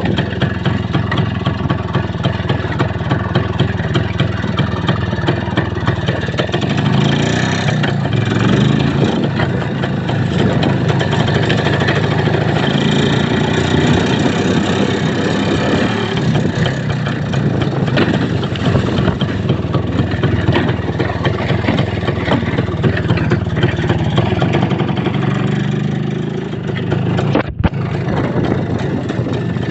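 A vehicle's engine running while driving, its pitch rising and falling with the throttle. The sound cuts out for an instant near the end.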